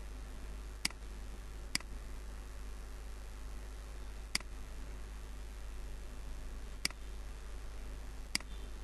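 Five sharp computer mouse clicks at uneven intervals, over a steady low hum.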